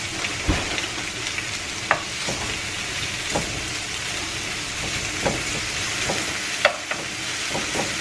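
Turkey bacon and spinach sizzling in a nonstick frying pan, with a wooden spatula knocking and scraping against the pan now and then as they are stirred.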